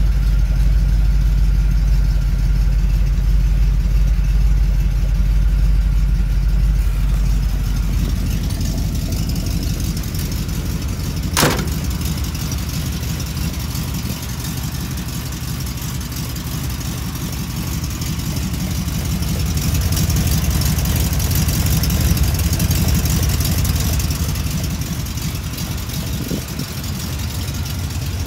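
1971 Chevrolet C10's cammed Vortec 350 small-block V8 (Summit 1103 cam, long-tube headers) idling steadily just after start-up. It carries a light tapping that the owner puts down to the exhaust rattling underneath, not a rod knock. One sharp click about eleven and a half seconds in.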